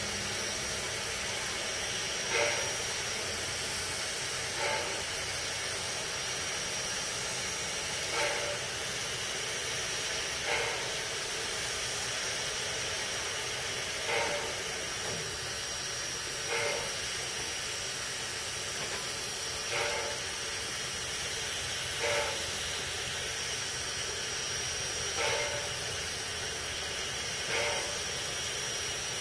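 Robert Dollar Co. No. 3 steam locomotive standing and idling: a steady hiss of escaping steam with a thin high tone in it, and a soft puff of steam about every two to three seconds.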